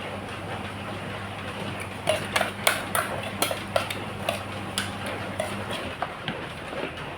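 Spoons and dishes clinking irregularly, in a quick run of sharp clinks from about two seconds in, over a steady background hiss. A low hum underneath stops near the end.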